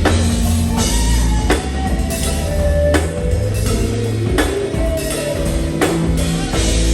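Live band playing during a sound check: a drum kit keeps the beat over heavy held bass notes, with a sliding melodic line from guitar or keyboard on top.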